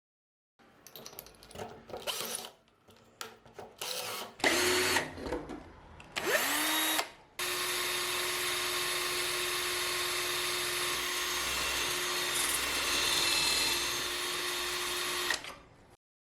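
Handheld power drill: a few handling clicks, then two short trigger bursts that spin up in pitch, then a long steady run of about eight seconds with a hissing grind, cut off suddenly near the end.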